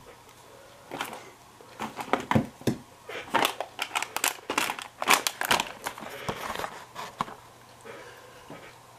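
Close handling noise: a run of sharp clicks, crinkles and rustles right at the microphone, densest in the middle and thinning out near the end.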